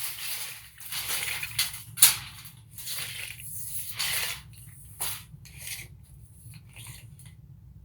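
Hart 30-foot tape measure being worked: its steel blade sliding and rattling through the case in a string of scraping bursts, with a sharp snap about two seconds in, the bursts growing fainter and sparser toward the end.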